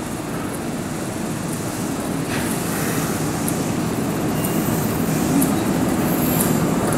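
Kintetsu electric local train pulling into a station platform, its low running rumble growing steadily louder as it draws near, with faint high squeals in the second half.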